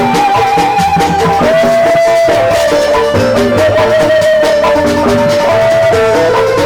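Band music played for a sound check with no added effects: a held melody line stepping between notes over steady percussion and a bass line.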